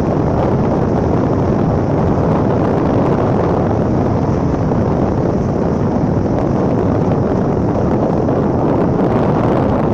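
Wind blowing hard across the microphone: a loud, steady rumble of noise that does not let up.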